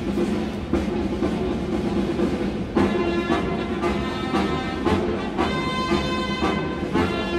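Military band playing a ceremonial piece, with drum beats throughout and brass joining in strongly about three seconds in.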